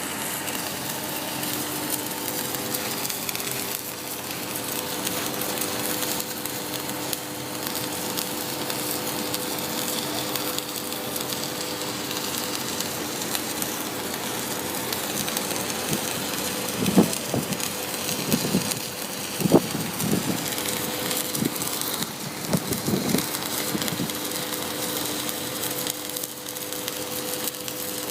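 Flux-cored arc welding with 2 mm hard-facing wire: the arc crackles steadily over a faint steady hum. A few low thumps come in a cluster about two-thirds of the way through.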